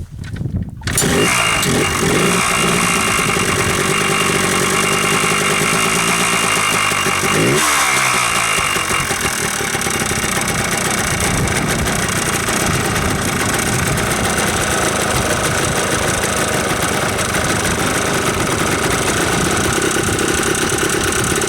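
Yamaha Blaster's 195cc two-stroke single-cylinder engine, top end freshly rebuilt and bored 20 over, cold-started on choke: it catches about a second in and then runs steadily, its speed dropping about seven and a half seconds in and settling into an idle.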